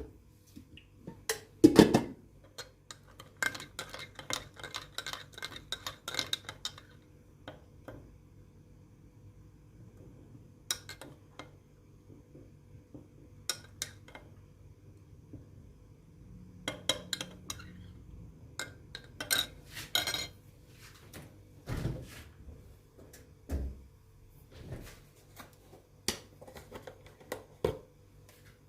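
Dishes and cutlery clinking and knocking together, with scattered sharp clinks and a run of quick ringing clinks a few seconds in. A couple of duller thuds come later.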